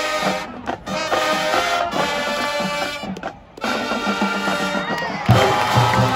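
Marching band playing, brass horns over a beating drumline. The music drops out for a moment about three and a half seconds in, then comes back loud with heavy drum beats near the end.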